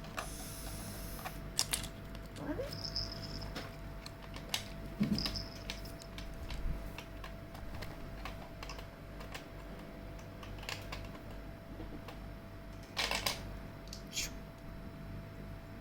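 Plastic toy building blocks being handled and fitted together: scattered light clicks and clacks, with louder clusters about five seconds in and near the end, over a faint steady electrical hum.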